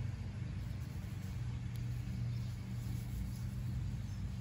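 Lawnmower engine running steadily, a low even drone.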